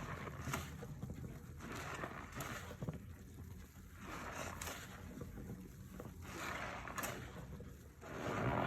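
Wet scrubbing strokes through foaming floor-cleaner suds, a swish every second or two, the loudest near the end.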